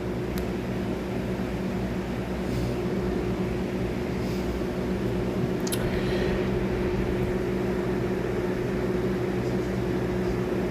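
A steady machine hum with a held droning tone, and a faint click about six seconds in.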